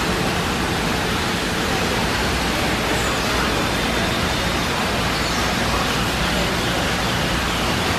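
Steady rushing background noise spread evenly from low to high pitch, holding the same level throughout with no distinct events.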